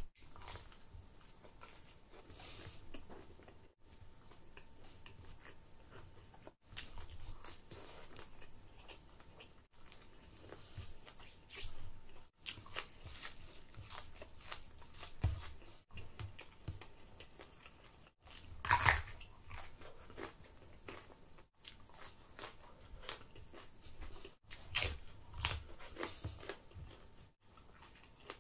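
Close-miked eating: biting into and chewing crusty bread with cheese, with crisp crunches and wet mouth sounds. The loudest crunch comes a little past the middle. The sound drops out abruptly several times where takes are cut together.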